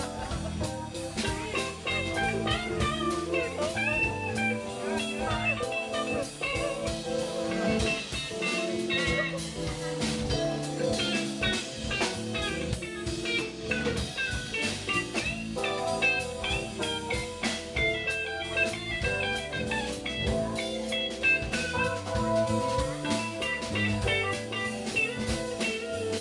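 Live band playing an instrumental passage: an electric guitar plays a lead melody over drums and bass.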